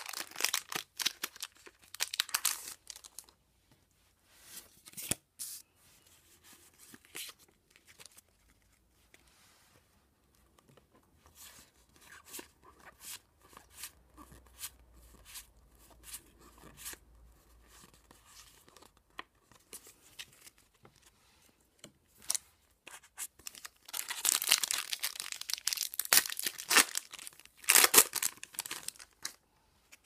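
Pokémon card booster pack wrappers being torn open and crinkled, loudest near the start and again in a long stretch near the end, with quieter sliding and flicking of the cards in between.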